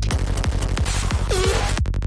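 Electronic psytrance loop playing from a sample-based software instrument: a steady kick drum about twice a second over a bassline, with synth layers and a falling synth glide about one and a half seconds in.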